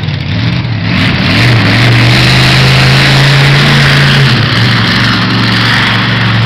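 A heavy vehicle engine running loudly, its note rising about a second in and then holding steady.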